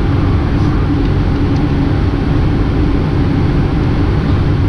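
Steady cabin drone of a jet airliner in its climb: engine hum and rushing airflow, loud and unchanging.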